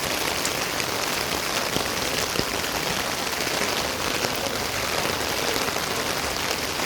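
Steady monsoon rain falling, an even hiss with scattered drop ticks.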